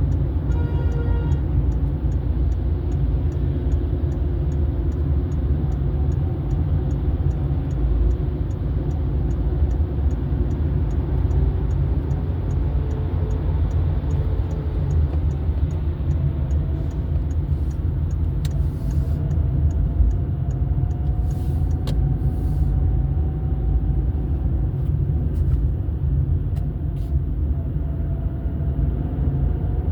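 Steady low rumble of a car driving along a road, engine and tyre noise, with a faint drone that slowly wavers in pitch. A faint regular high ticking fades out about halfway through.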